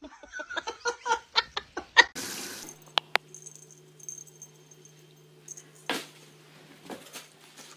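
A person laughing in quick short bursts for about two seconds. Then a quiet room with a steady low hum and a few faint taps.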